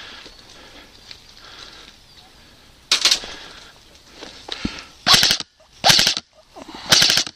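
Airsoft rifle firing four short rapid-fire bursts, each a quick rattle of shots. The first comes about three seconds in, and three more follow a second apart near the end.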